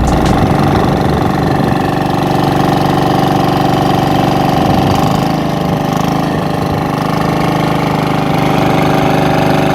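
Boat engine running steadily, with a slight dip in speed about five seconds in.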